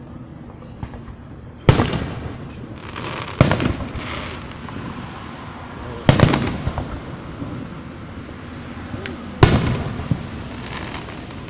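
Aerial fireworks shells bursting: four loud booms a few seconds apart, each trailing off with echoing crackle.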